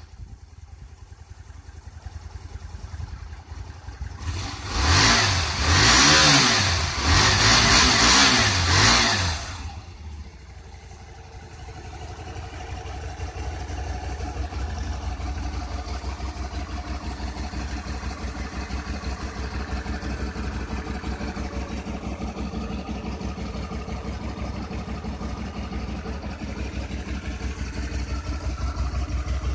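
Hyosung GT 125 motorbike's 125 cc V-twin engine idling, then revved up and down several times from about four seconds in, for around five seconds. It then settles back into a steady idle.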